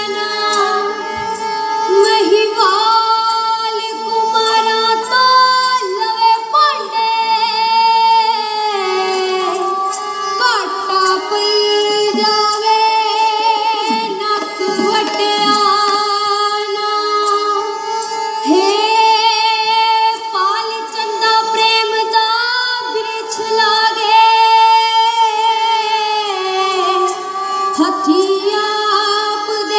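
Women's voices singing Punjabi folk poetry at a festival performance, holding long high notes with wavering pitch and slides between them.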